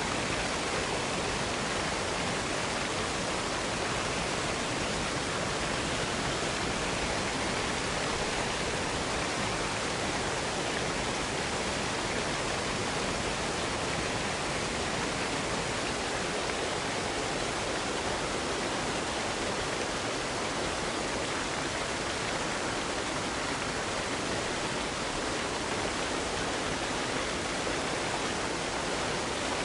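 Waterfall: a steady, even rush of falling water with no let-up.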